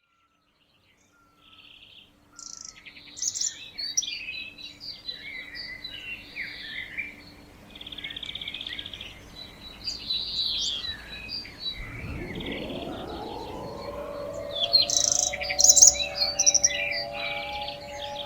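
Songbirds chirping and calling, with an outdoor warning siren starting about two-thirds of the way in. The siren winds up in a rising glide and settles into a steady chord of several notes.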